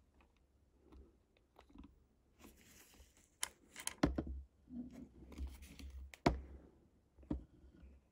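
Handling noises: scattered light clicks, two short scraping sounds and three sharp knocks about four, six and seven seconds in.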